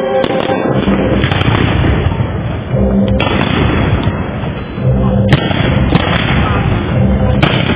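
Aerial fireworks bursting: sharp bangs every second or two over a continuous crackle and rumble.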